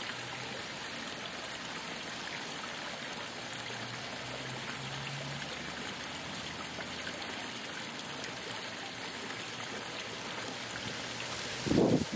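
Steady, even outdoor background hiss, with a brief louder low thump near the end.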